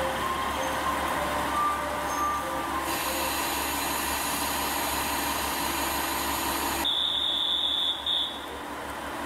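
JR KiHa 47 diesel railcar idling at a station platform: a steady low engine hum. A few short chime-like tones sound in the first couple of seconds, and a high steady beep lasts about a second near the end.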